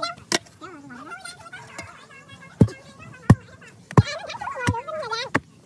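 A digging tool striking into packed grave earth: six sharp strikes, one near the start and then five at an even pace of about three every two seconds from about halfway on.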